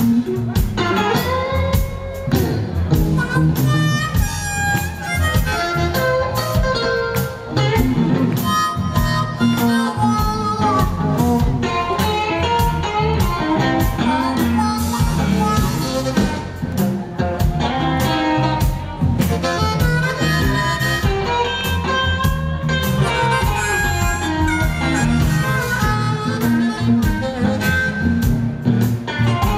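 Blues harmonica played cupped against a vocal microphone, amplified through the PA, over a live band's backing.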